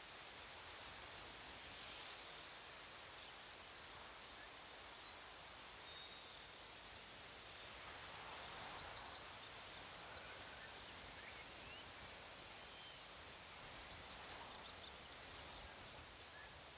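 Faint outdoor ambience dominated by a steady, finely pulsing high-pitched trill, with a few short high chirps near the end.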